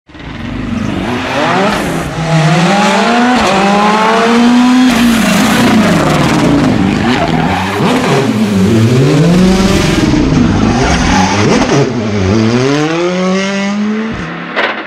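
Hyundai i20 rally car's engine revving hard, its pitch climbing and dropping again and again as it changes gear and lifts for corners. A sharp knock comes near the end.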